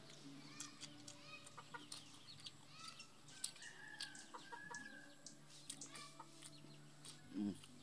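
Chickens clucking faintly, in short calls with a few longer drawn-out ones, mixed with scattered small clicks. A brief, louder low thump comes near the end.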